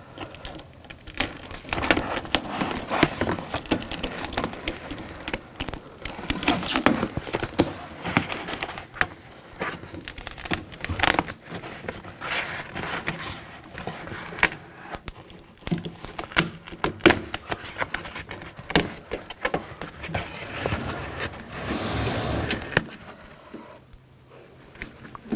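Plastic door vapor barrier being peeled off its butyl tape and handled, crinkling and tearing in irregular crackles, with a short lull near the end.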